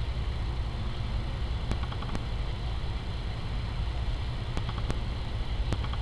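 A jay's beak hammering at a nut on a pine branch: about six sharp taps, scattered unevenly, over a steady low rumble.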